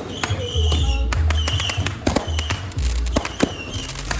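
Loud music with heavy bass playing, with sharp cracks of fireworks going off at irregular moments over it.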